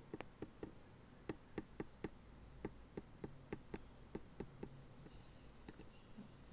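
Faint computer mouse clicks, about fifteen in quick runs of two to four, while scrolling through a file dialog.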